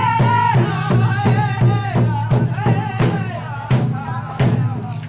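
Ojibwe drum group: a large drum struck in a steady, even beat with voices singing a high-pitched song over it.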